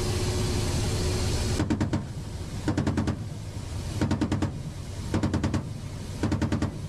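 Attack helicopter cabin noise from the rotor and engines, then, from about a second and a half in, five short bursts of rapid automatic cannon fire at about one burst a second.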